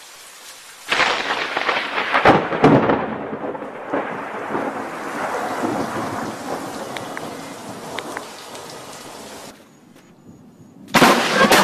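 A thunderclap starting about a second in, with sharp cracks in its first seconds, then rolling on and slowly fading for several seconds. Near the end another loud burst of storm noise starts.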